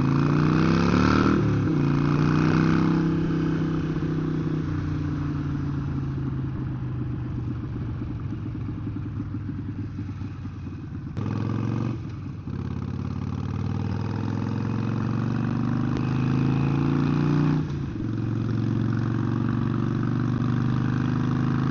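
Harley-Davidson Iron 883 Sportster's air-cooled V-twin engine running under way, through a Vance & Hines Short Shots exhaust. It revs up in the first second or so, then drops as it shifts, with further gear changes about halfway through and again near the end.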